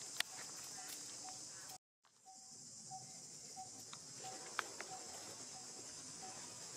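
Steady high-pitched drone of insects, with a short repeated note about every two-thirds of a second and a few sharp clicks. The sound cuts out briefly about two seconds in.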